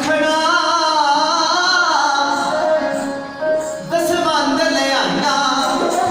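Devotional singing with instrumental accompaniment: a singer's voice slides up and down through long held notes over a steady backing tone, with a brief drop in loudness about three and a half seconds in.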